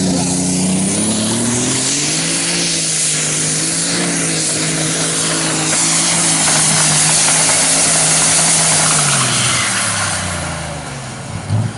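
Pulling tractor's engine running flat out under the load of the weight-transfer sled. Its pitch climbs about two seconds in, holds steady for several seconds, then falls away near the end.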